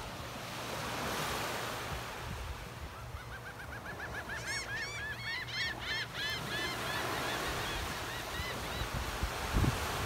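A gull calling a long run of quick notes, about five a second, that climb in pitch and then slow and fade, over small waves washing onto the sand.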